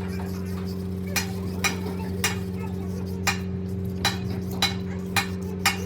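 Metal parts and hand tools clicking and clinking, about eight sharp taps at uneven spacing, over a steady low hum.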